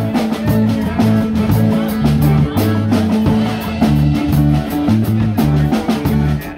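Live band playing an instrumental passage of a rock song: electric guitars over a drum kit, with a repeating low bass line.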